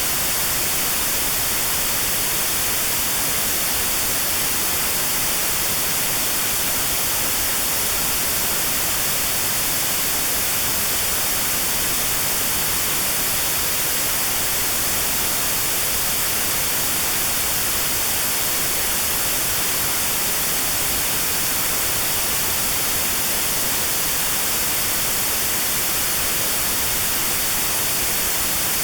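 Steady white noise with a narrow notch cut out around 4 kHz, used as notched sound therapy for tinnitus.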